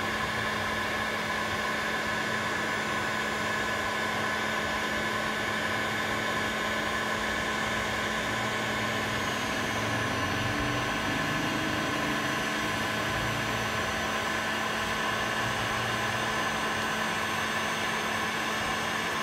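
Hot air rework station blowing steadily through its nozzle onto a phone logic board to heat the solder, a steady rush of air with a thin whine over it.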